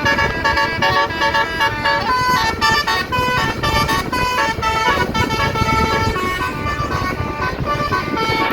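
Bus 'telolet basuri' multi-tone musical horn playing a melody, its notes stepping up and down several times a second over a steady low rumble.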